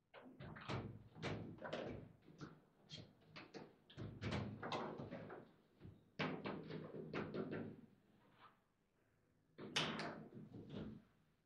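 Table football being played: quick, irregular clacks and knocks of the ball being struck by the players' figures and hitting the table, along with rods knocking. The knocks come in rapid clusters, pause about eight seconds in, then start again near ten seconds.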